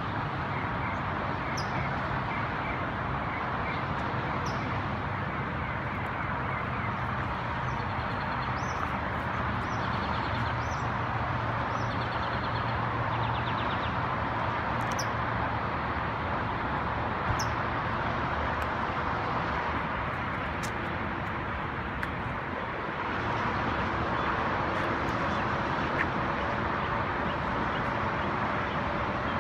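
A steady hum of distant traffic, with short bird chirps scattered through it and a rapid trill about a third of the way in.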